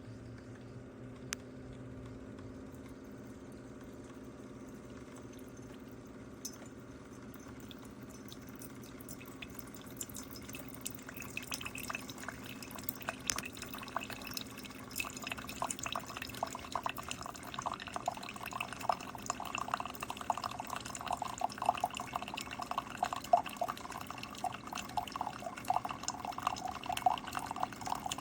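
Keurig K-Slim single-serve pod coffee maker brewing. A steady low machine hum is joined, from about ten seconds in, by coffee streaming and dripping into the cup, growing busier and louder.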